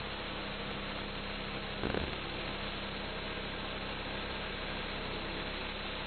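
Homemade band sawmill's 11-horsepower gas engine running steadily while its band blade cuts along a log, with a short knock about two seconds in.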